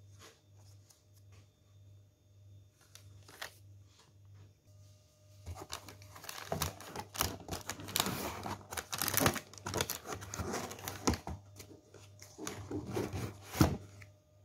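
Thin plastic bag crinkling and rustling as a hand rummages through packaging in a cardboard box, in a long spell starting about five seconds in and a shorter one near the end, which ends with a sharp click.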